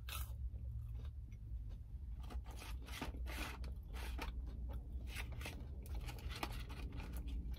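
Close-miked chewing of a McDonald's chicken nugget dipped in sauce: crisp crunches and mouth sounds come in a quick, irregular run over a low steady hum.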